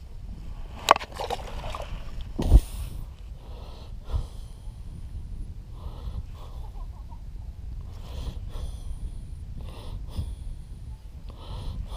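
Heavy breathing close to the microphone, soft puffs about once a second, with handling sounds: a sharp click about a second in and a louder thump a moment later.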